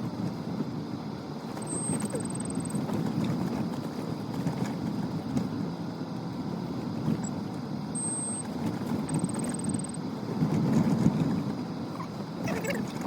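Kia Mohave SUV driving on a rough unpaved track, a steady rumble of engine and tyres.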